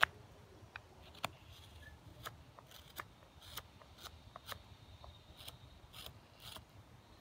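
Knife blade whittling dry trembling aspen: about a dozen short, crisp cuts at an irregular pace, the sharpest right at the start.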